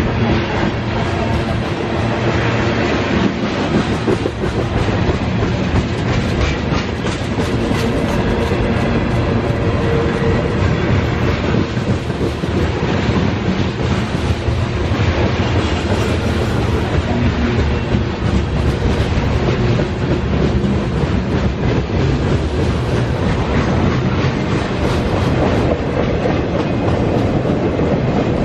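Freight cars of a mixed train (covered hoppers, boxcars and tank cars) rolling past close by. Their steel wheels clack over the rail joints under a steady, loud rolling noise.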